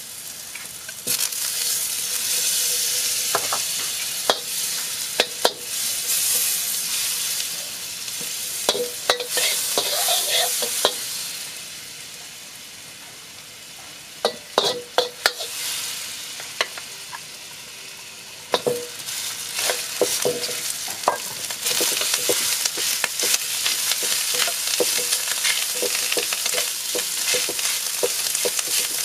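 Chopped garlic and butter sizzling in hot oil in a wok, with a metal ladle scraping and knocking against the pan as it stirs. The sizzle quietens for several seconds midway, then comes back stronger and steady toward the end.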